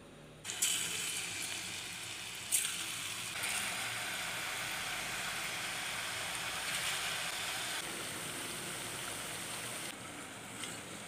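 Ribbon murukku dough sizzling as it deep-fries in hot oil, pressed in strips from a murukku press. The sizzle starts suddenly about half a second in, holds steady, and eases off near the end.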